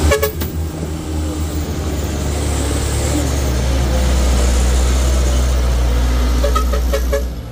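Heavy truck engine running with a steady low drone, a little louder from about the middle on, dropping away suddenly just before the end.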